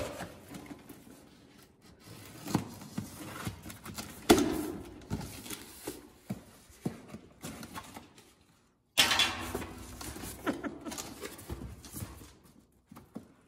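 A knife slicing through packing tape on a cardboard box, with cardboard scraping and rustling and irregular knocks, the loudest about four seconds in; near the end the box flaps are pulled open.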